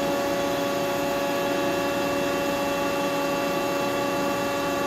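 Haas SL-30T CNC lathe running with a steady, even machine hum made of several steady tones while its tailstock is jogged along the bed.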